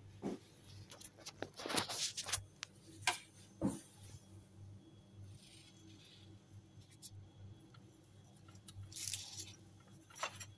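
Scattered light clicks, knocks and rustles as a yellow plastic apple slicer is handled and set down over a whole apple on a plate, with a faint low hum underneath.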